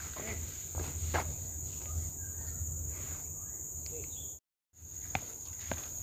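Footsteps on a cracked concrete forest path, with a steady high-pitched insect chorus behind them. The sound drops out for a moment about four and a half seconds in.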